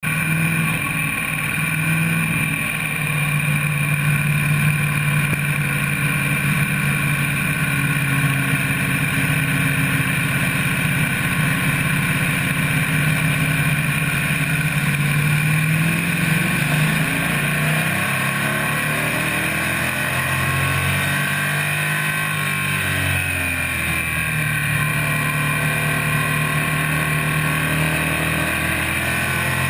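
Stock car's engine running hard at racing speed, heard from inside the roll-caged cockpit. About two-thirds of the way through, the engine note drops and then climbs back up.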